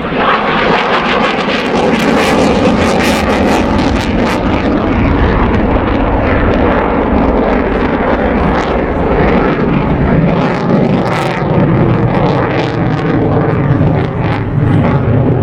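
Fixed-wing aircraft engine noise: a loud, continuous roar with many sharp crackles, growing deeper in the last few seconds.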